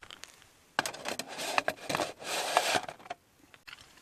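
Rustling, scraping and light clinks as a curry is tipped and scraped into a small camping cook pot, in a run of uneven bursts from about a second in until about three seconds.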